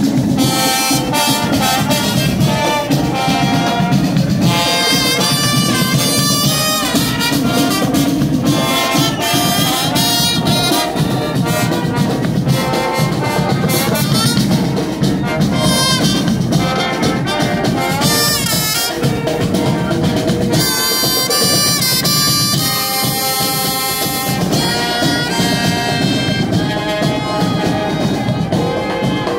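Civic wind band playing: brass and woodwinds carry the melody over drums.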